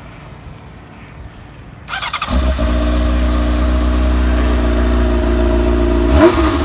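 Honda CB600F Hornet's inline-four engine is cranked by its electric starter about two seconds in. It catches almost at once and settles into a steady idle, with a quick throttle blip near the end.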